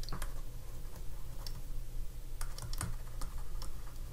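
Stylus writing by hand on a pen tablet: irregular light clicks and taps as the pen tip strikes and lifts off the surface, over a low steady hum.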